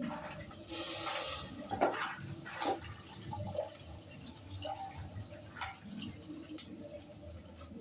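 Milk being poured into a cooking pot for tea, with a stretch of pouring about a second in followed by a few splashes.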